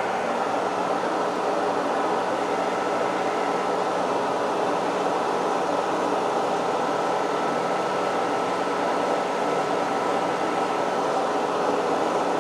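Kearney & Trecker horizontal milling machine running its spindle with a shell mill turning, a steady gear-drive hum with a thin constant whine over it.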